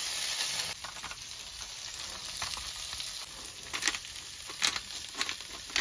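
Green beans and bell peppers sizzling in oil in a nonstick frying pan, the sizzle dropping quieter about a second in. Near the end come a few short crunching clicks from a pepper mill grinding black pepper over the pan.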